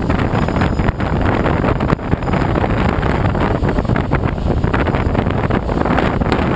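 Airflow noise of a Schweizer SGS 2-33A glider in flight: loud, steady wind buffeting the microphone with irregular crackles, with no engine.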